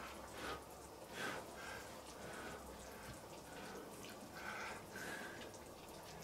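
Stew simmering in a kettle, bubbling with faint, irregular little pops.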